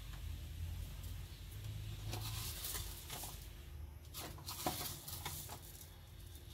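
Cooking oil heating in an iron kadai over a gas burner: a low steady burner rumble with scattered soft crackles and patters from the oil through the middle, and one sharper small click.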